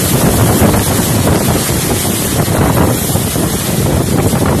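Violent storm wind gusting through thrashing trees and buffeting the microphone, with wind-driven rain: a loud, steady rushing that swells and eases slightly.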